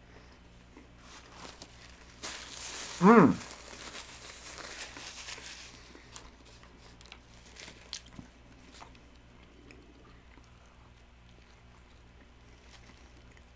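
Eating a McDonald's McChicken sandwich up close: a stretch of crunching and crinkling from about two to six seconds in, then quieter chewing with small clicks. A brief, loud pitched sound cuts in about three seconds in and is the loudest moment.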